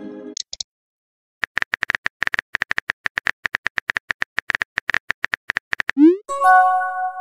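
Texting-app sound effects: a rapid run of keyboard tap clicks, several a second, for about four seconds, then a quick rising swoop and a short bell-like chime near the end as the next message pops up.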